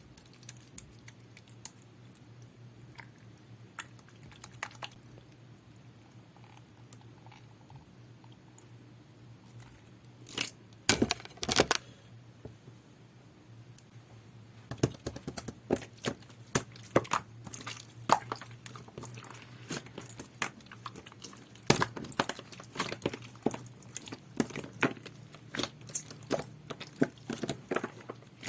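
Hands squeezing and stretching a large batch of clear, jelly-textured slime. Sparse sticky clicks come for about ten seconds, then a loud cluster of crackling pops, then a long run of dense wet clicks and pops.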